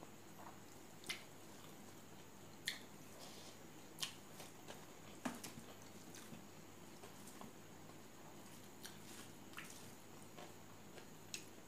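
Quiet eating sounds: short wet clicks and squishes, a few scattered about a second or two apart, from fingers mixing rice with pork curry and from chewing.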